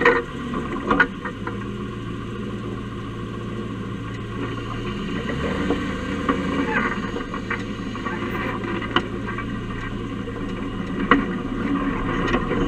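Dodge Ramcharger driving slowly, heard from under the chassis: engine and drivetrain running steadily, with the engine note shifting a couple of times midway. A few sharp clicks and knocks come through, one about a second in and two more near the end.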